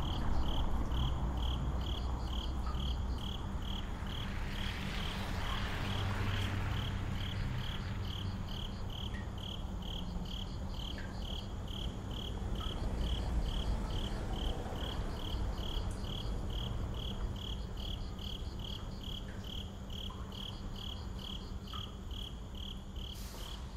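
Crickets chirping in an even rhythm, about two chirps a second, over a low steady hum.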